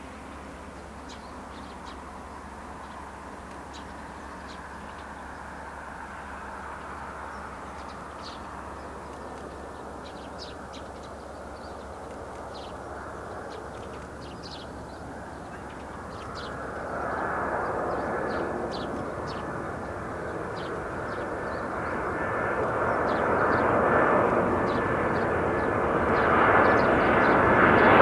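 Boeing 767-300ER airliner on landing approach, its twin General Electric CF6 turbofans growing steadily louder as it closes in, a rushing jet noise with a steady high whine that joins a bit past the halfway point and strengthens toward the end. Short high bird chirps sound throughout.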